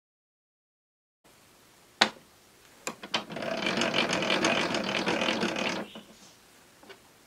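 Table saw blade-height handwheel being cranked, raising the blade: a dense, rapid rattle of clicks from the elevation gearing lasting about two and a half seconds. It is preceded by a single sharp knock about two seconds in and a couple of lighter clicks.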